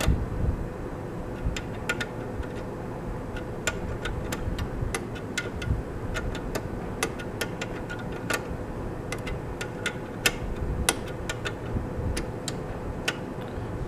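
A refrigeration valve wrench clicking irregularly, many times, as it turns in the stem of a condensing unit's service valve to front-seat it and shut off a leaking cap, with a faint steady hum beneath.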